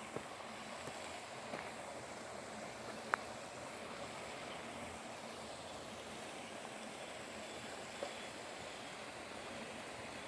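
Wood campfire crackling: a steady low hiss with four single sharp pops, the loudest about three seconds in.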